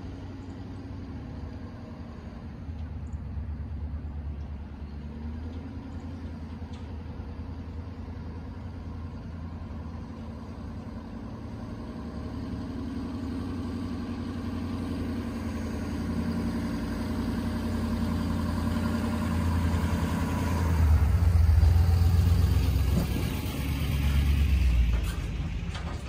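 Pickup truck's engine running as it drives up towing a dump trailer loaded with logs. It grows steadily louder as it approaches and is loudest as it passes close by near the end.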